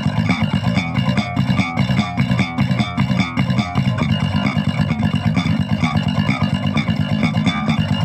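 Four-string electric bass playing a fast, dense brutal death metal riff, with rapid notes following each other without a break.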